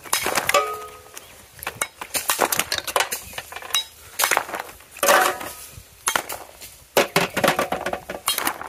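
Small terracotta clay pots being knocked and cracked open, a run of sharp knocks and crunching breaks as the fired clay splits and shards fall. One knock near the start rings briefly.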